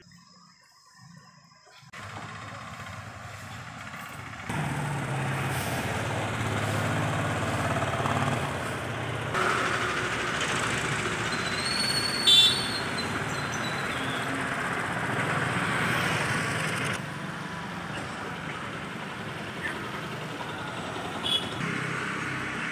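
Street traffic noise: a motor vehicle running close by on the road, a steady rumble that comes in after a quiet couple of seconds and grows louder about four seconds in. A short high-pitched squeal sounds near the middle.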